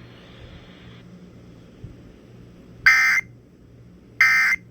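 Emergency Alert System end-of-message (EOM) data bursts broadcast over FM radio: short, harsh digital tone bursts about a second and a half apart, two of them starting about three seconds in. They mark the end of the alert.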